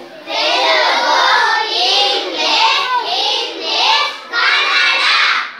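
A class of young children singing together in unison, loud, in several short phrases with brief breaks, stopping just before the end.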